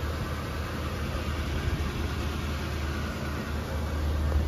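A 1979 Chevrolet Impala's 305 V8 idling steadily, a low, even engine sound.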